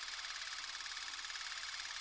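Super 8 film mechanism running: a steady, rapid mechanical ticking whirr over a thin hiss.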